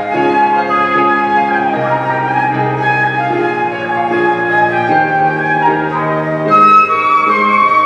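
Flute playing a melody live, over an accompaniment of sustained low notes.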